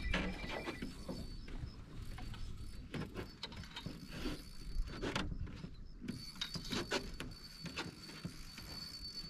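Small spinning reel being cranked while a fish is played on a light rod: irregular mechanical clicks with a thin high whine that comes and goes.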